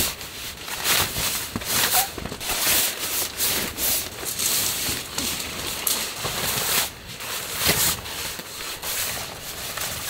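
Tent fabric rustling and rubbing in irregular bursts as solid wall panels are fitted over the tent's mesh windows, with gusty wind and rain on the tent.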